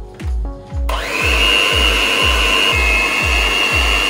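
Electric hand mixer switched on about a second in and then running steadily with a high whine, its beaters whisking chocolate cake batter. Background music with a steady beat underneath.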